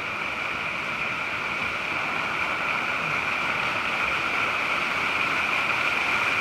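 Steady rush of running water from a stream or small falls, slowly growing louder.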